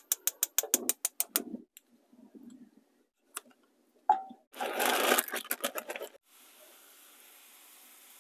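Propane stove burner igniter clicking rapidly, about seven clicks a second, for a second and a half as the burner is lit. A clink and a loud rush of sizzling follow about four seconds in as butter goes into the hot pan, then a faint steady sizzle of vegetables frying.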